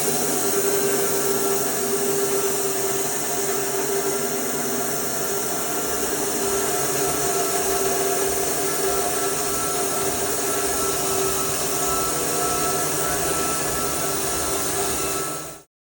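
Rhino R750 portable bandsaw sawmill running steadily, its blade cutting through a camphor log, with a steady machine hum over a broad hiss. The sound cuts off abruptly near the end.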